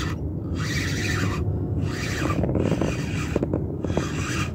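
Spinning reel cranked steadily under load while a hooked zander is reeled in, a rasping whir that comes in bursts of about one per second with short breaks between them.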